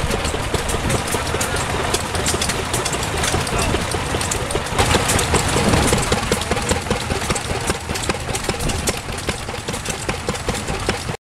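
Vintage hit-and-miss stationary engines running together, a dense, uneven clatter of firing knocks. The sound cuts off abruptly near the end.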